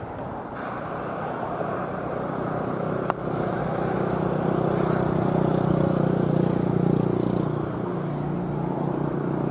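An engine running steadily, its hum growing louder through the middle and easing a little near the end, with a single sharp click about three seconds in.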